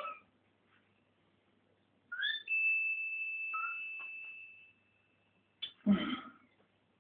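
A single high whistle note from the cartoon soundtrack, played through a TV speaker. It is preceded by a short chirp, holds one steady pitch for about three seconds and fades away. Near the end comes a brief character vocal sound.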